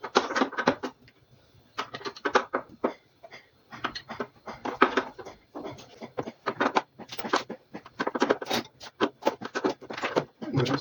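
Quick runs of metallic clicking and scraping from a 10 mm wrench working the alternator mounting bolts, in short bursts with a couple of brief pauses.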